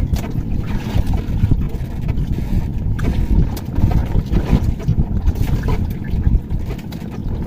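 Wind buffeting the microphone on a small fishing boat, an uneven low rumble, with scattered light knocks.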